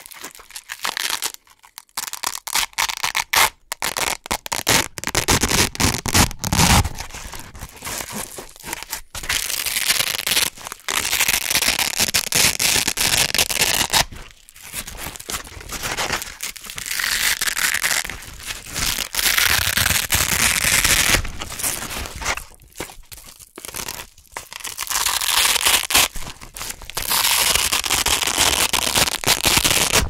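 Velcro hook-and-loop circles being ripped apart again and again close to the microphone: crunchy tearing in runs of several seconds, with short pauses between pulls.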